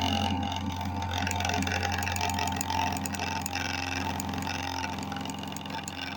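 Aprilla AHC 5050 rechargeable electric hair clipper running with a steady low buzz and a rattling, scraping noise over it.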